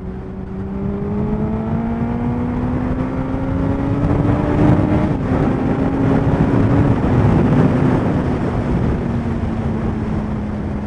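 Suzuki Hayabusa's inline-four engine pulling at road speed, its pitch rising slowly, dropping a step about five seconds in, then easing gradually down, under heavy wind rush.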